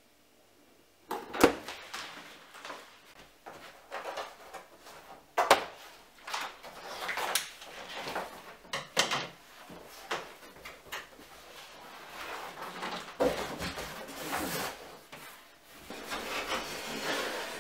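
Cardboard furniture packaging being cut open and pulled off: plastic strapping snapping under scissors, with cardboard scraping, rustling and knocking against wood. The loudest snap comes about a second and a half in, another about five seconds in.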